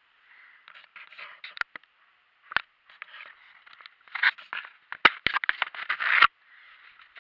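Handling noise on a small camera as a hand grips and picks it up: fingers scraping and rubbing over the casing next to the microphone, with several sharp knocks and clicks, the loudest in the second half.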